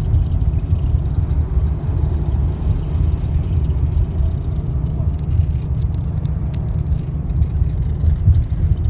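Steady low rumble of a road vehicle moving at speed: road and tyre noise with some wind buffeting, heard from inside the vehicle.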